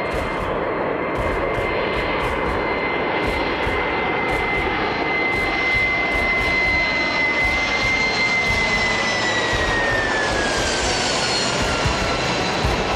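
Twin-engine jet airliner flying low overhead on approach, its engines a steady rushing noise with a high whine. The whine falls in pitch from about eight seconds in as the plane passes over.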